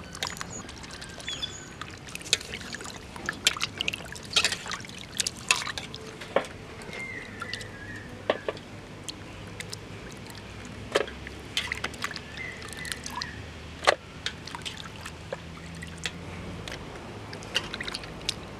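Water sloshing, splashing and dripping in a steel bowl as pieces of raw fish are washed by hand, with many short scattered splashes and drips.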